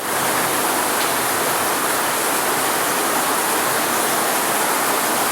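Waterfall running steadily: a constant, unbroken noise of falling and splashing water.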